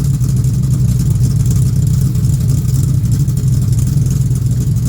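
A steady, low drone of a running motor.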